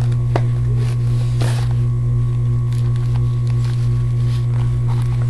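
Loud, steady low electrical hum with a few faint higher tones, like mains hum in the recording. There is a faint click about a third of a second in, and a brief soft rustle-like noise around a second and a half in.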